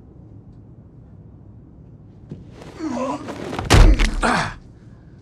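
A man's dying groan, with a loud heavy thud about three and a half seconds in as his body falls back onto a seat.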